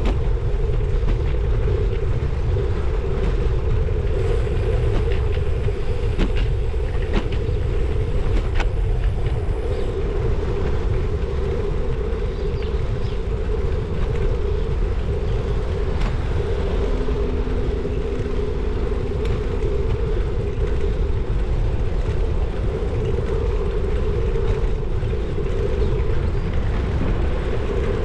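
Riding noise from a bicycle-mounted camera: steady rumble of wind on the microphone and tyres on tarmac, with a constant hum and a few light rattles from road bumps.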